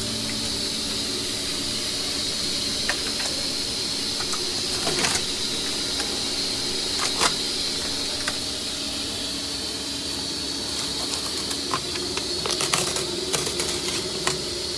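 Steady hiss with a low hum under it, and scattered crinkling and clicking as crumpled aluminium foil and a plastic bag are handled, busiest near the end.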